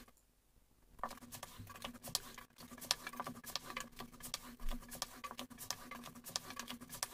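A long thin wooden rolling pin (oklava) rolling a sheet of dough thin on a wooden board, with many light, irregular clicks and taps. It starts after about a second of near silence.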